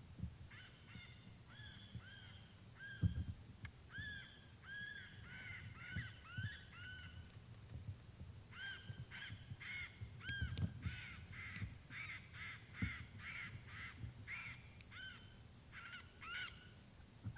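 Birds calling: a long run of short, arched, honk-like calls, several a second and most crowded in the second half, with a few dull thumps, the loudest about three seconds in.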